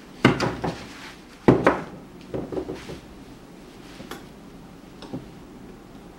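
Clear acrylic panels knocking and clacking against each other as they are fitted together into a box. There are two loud knocks, just after the start and about a second and a half in, then a quick run of smaller clicks and a few faint ticks.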